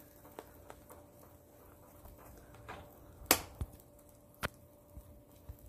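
Red silicone spatula stirring a thick milk and dry-milk batter in a nonstick pan while khoya is being cooked: faint scraping with scattered light clicks and taps, the sharpest about three seconds in and another about a second later.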